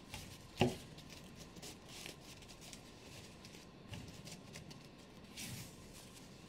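Faint rustling of fabric being handled and slid across a sewing machine bed, with a sharp click about half a second in and soft swishes later on; the machine is not running.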